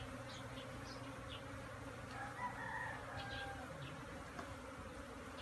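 Asian honey bees (Apis cerana) buzzing steadily around an opened colony as its frames are lifted out. A rooster crows in the background about two seconds in.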